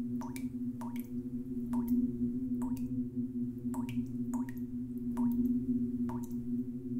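Water dripping at uneven intervals, roughly one drop a second, each a short sharp plink, over a steady low hum.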